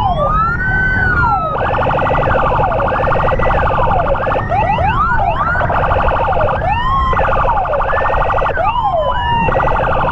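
Several emergency sirens from the ambulance and its motorcycle escort sound at once. Wailing tones sweep up and down and are broken three times by stretches of a rapid pulsing tone, over a steady rumble of engine and wind noise.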